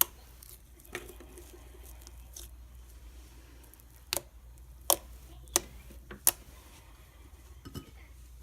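Fluffy slime being poked and squeezed by hand, giving about seven sharp, irregular popping clicks, over a steady low background hum.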